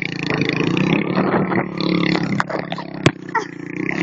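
Small motorcycle engine running steadily, with one sharp knock about three seconds in.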